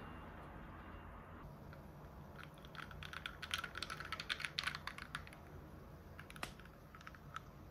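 A glass of iced peach soda being handled: a quick flurry of small clicks and crackles, then one sharper click near the end.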